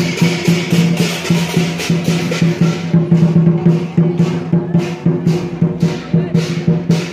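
Chinese dragon-dance percussion: drums and cymbals beaten in a fast, steady rhythm.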